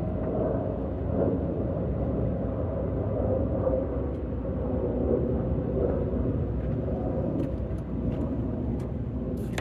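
Starter motor steadily cranking the 2002 Acura TL's 3.2-litre V6, which turns over but does not catch: a crank-no-start even with a fully charged battery. A few light clicks come near the end.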